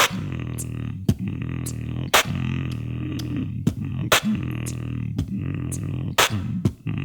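Beatboxed beat made by mouth: sharp snare-like hits every one to two seconds over a steady low droning bass.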